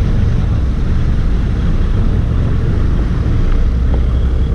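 Boat engine running steadily, a low drone.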